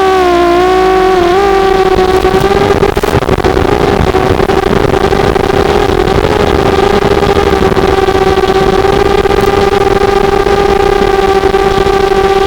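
Small quadcopter's four brushless motors and propellers buzzing steadily in flight. The pitch wavers with throttle changes for the first second or so, then holds at an even drone.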